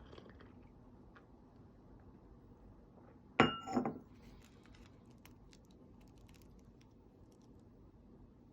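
A sharp clink of tableware with a brief ring, about three and a half seconds in, followed by scattered faint light clicks over a quiet room.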